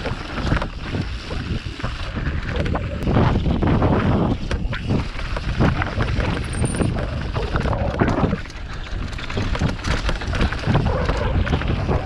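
Wind rushing over the microphone of a mountain bike descending a rocky dirt singletrack, with the tyres crunching on the trail and frequent knocks and rattles as the bike rides over stones.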